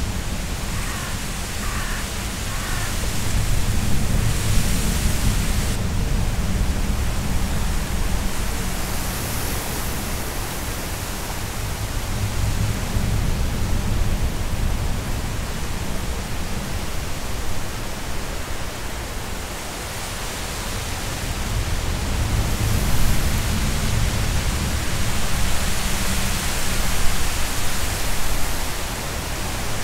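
Strong wind blowing through reeds and long grass, with a low buffeting of wind on the microphone; it swells and eases in several gusts.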